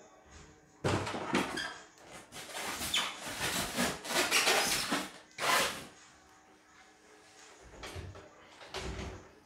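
Cardboard box and packing material scraping and rustling as a sewing machine is worked loose and pulled out, loud and busy for several seconds, then a few soft low bumps near the end as the machine is lifted clear.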